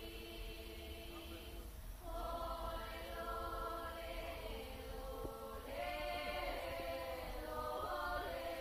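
Small women's vocal group singing a folk song a cappella in several-part harmony, with long held notes; new phrases begin about two seconds in and again near six seconds.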